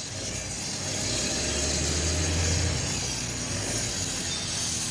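Motor-vehicle engine noise over a steady street din. The low engine hum swells to its loudest about two and a half seconds in, then eases off.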